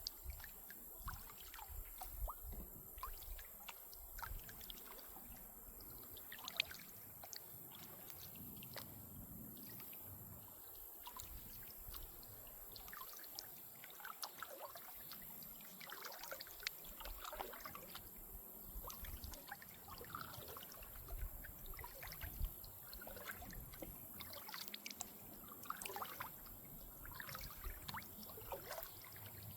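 Water trickling and dripping around a kayak moving down a creek, with many small drips and plinks throughout, as from a paddle and light water against the hull.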